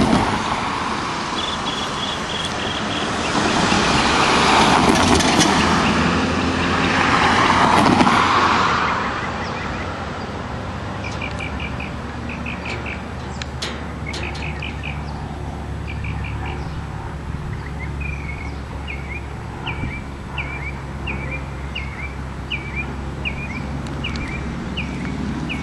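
Diesel locomotive engine running with a low steady drone as the train creeps slowly forward. A loud rushing noise swells up twice in the first nine seconds, and short high bird chirps repeat through the second half.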